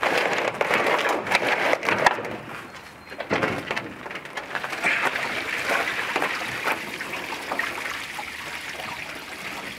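Fiberglass hovercraft hull knocking and scraping against the trailer's deck as it is tilted up onto its side. The sharpest knocks come in the first two seconds, followed by a longer rustling scrape.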